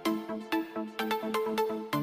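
Background electronic music with a steady beat, notes struck about four times a second.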